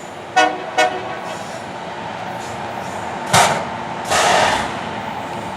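Rail grinder's horn giving two short toots just after the start, over the steady running of the machine; about three seconds in come two loud bursts of hissing noise, the second lasting about half a second.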